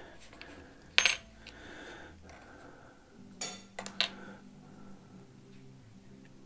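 Small metal parts clinking as a knife pocket clip and a screwdriver are handled against the knife: one sharp clink about a second in, then three quick clinks a little past the middle.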